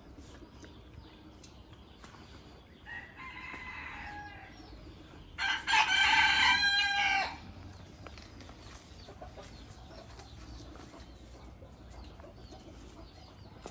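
A rooster crowing twice: a fainter crow about three seconds in, then a louder one about five and a half seconds in.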